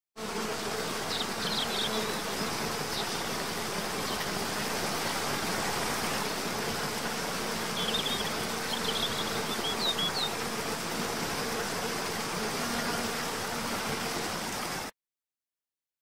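Steady rushing of a waterfall with a faint low buzz underneath and a few short high chirps, about a second in and again about eight seconds in. It starts and cuts off abruptly.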